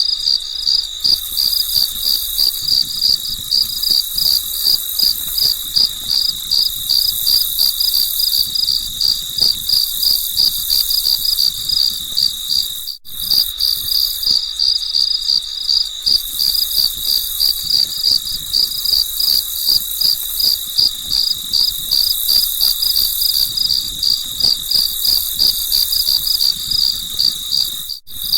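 Crickets chirping in a steady, even rhythm of high chirps, a few per second, over a high hiss. The sound drops out for an instant about halfway through and again near the end.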